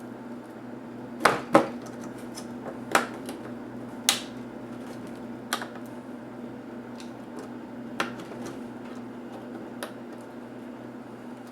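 Sharp clicks and taps of hard plastic and small metal laptop parts and tools being handled, about seven in all, irregularly spaced, with two loud ones in quick succession about a second and a half in. A steady low hum runs underneath.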